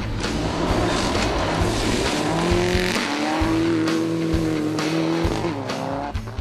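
Rally car engines running at high revs on gravel, with loose stones and tyre noise throughout. A steady high engine note holds for a few seconds, then rises and falls away near the end.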